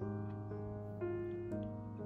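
Background piano music: a slow melody with a new note about every half second over a held bass.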